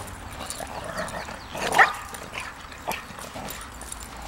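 Two dogs play-fighting, with one short, high-pitched bark about two seconds in and a few quieter short dog calls around it.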